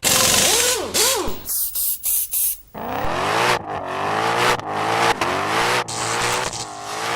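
A car engine revving, its pitch rising and falling over and over, after a noisy burst at the start.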